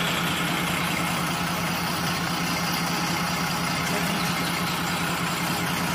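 Vehicle engine running with a steady low drone.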